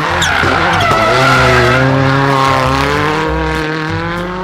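Race car engine sound effect: a loud engine note that dips in the first second, then holds and slowly climbs. A pulsing low beat of background music runs underneath.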